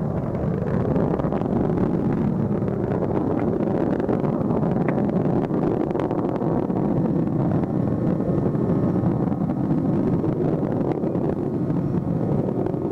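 Space shuttle launch roar during ascent: a steady deep rumble with a fine crackle, unbroken throughout.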